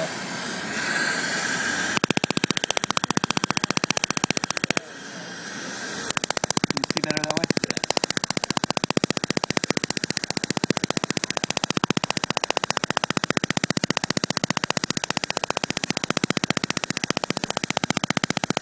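Waterlase iPlus erbium dental laser firing on a tooth: a rapid, even train of sharp pops over a steady hiss. The pops stop for about a second some five seconds in, then resume.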